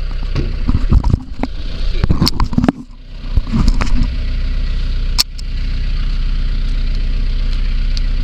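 Vehicle engine idling steadily, with irregular knocks and rattles in the first three seconds and a sharp click about five seconds in.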